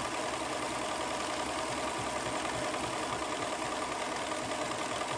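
Sewing machine running at a steady speed, stitching wavy lines in free-motion quilting.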